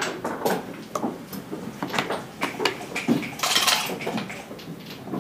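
Backgammon checkers clacking against each other and the board as a player picks them up and sets them down: a run of sharp clicks.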